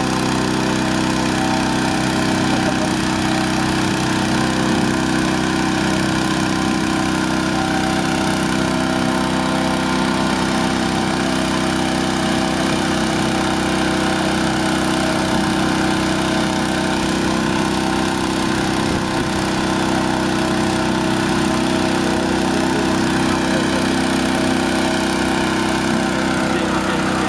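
Petrol-engine inflator fan running steadily, blowing cold air into a hot-air balloon envelope during cold inflation.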